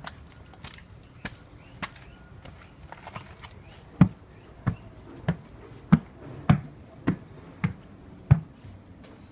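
Footsteps climbing timber stairs: about eight hollow thuds, roughly one every 0.6 s, beginning about four seconds in. Before that come lighter, quieter steps on a stone path.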